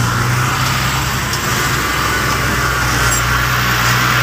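Road-vehicle engine running steadily, a low hum with road noise over it.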